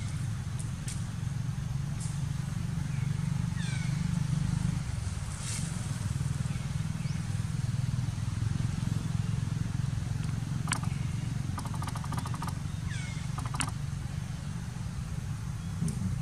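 A steady low motor drone runs throughout, with short, high, falling chirps now and then and a brief rattling trill about twelve seconds in.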